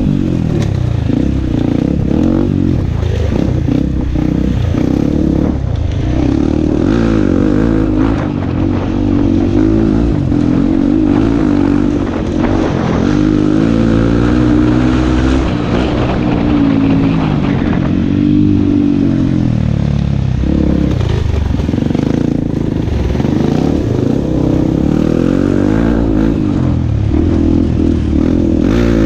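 Dirt bike engine heard from on board, its revs rising and falling over and over as it is ridden along a rough, rocky trail, with short knocks and rattles from the bumps.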